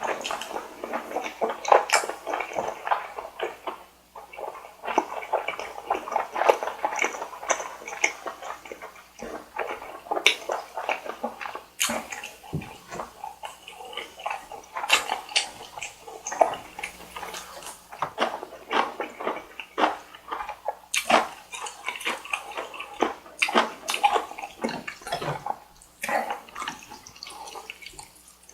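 Close-miked eating: wet chewing and mouth smacking on noodles and rice cake, as a dense run of small, irregular clicks.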